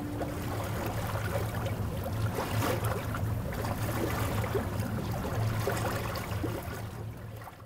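Water churning and splashing in the wake behind a slow-moving electric boat, over a low steady hum. The sound fades out near the end.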